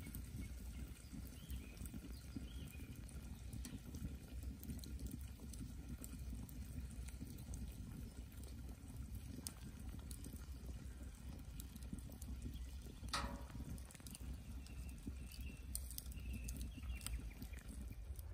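Wood campfire crackling, with scattered small pops over a low steady rumble and one sharper crack about two-thirds of the way through.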